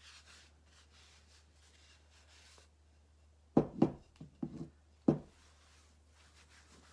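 Cotton cloth buffing the waxed painted surface of a terra cotta pot in faint rubbing strokes. From about halfway in, the clay pot knocks against the wooden work board about five times in quick succession as it is turned and set down.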